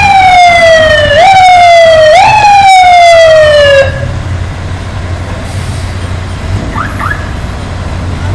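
Fire truck siren sliding down in pitch, jumping back up briefly twice, then cutting off about four seconds in. After that the aerial ladder truck's engine keeps up a steady low rumble.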